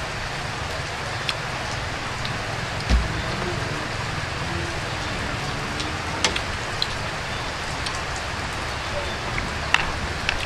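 Steady, even hiss of outdoor background noise, with a few sharp light clicks of chopsticks and eating, and one dull low thump about three seconds in.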